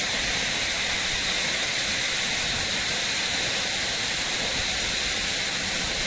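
Steady rush of a waterfall: an even hiss of falling water with no change in level.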